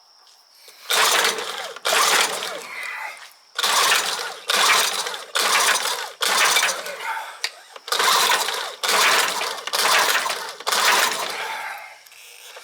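Two-stroke outboard motor being pull-started, about ten quick pulls on the recoil starter that crank it over without it catching: a no-start.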